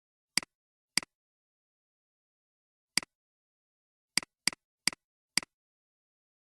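Computer mouse clicking seven times, short sharp clicks with dead silence between; two spaced clicks near the start, one about three seconds in, then a quicker run of four from about four seconds in.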